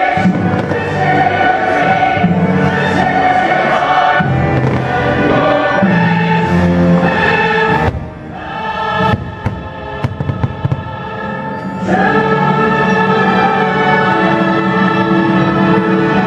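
Fireworks show soundtrack of choir singing over orchestra, mixed with exploding fireworks. Several sharp firework bangs stand out during a quieter passage of the music about eight to ten seconds in.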